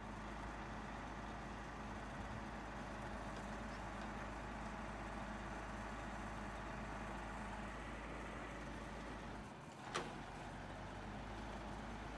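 Engine of a flatbed boom truck running steadily, driving its hydraulic knuckle-boom crane, with one sharp click about ten seconds in.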